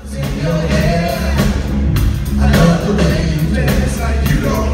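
Live band playing an upbeat song, with singing over heavy bass and drums, cutting in suddenly at the start.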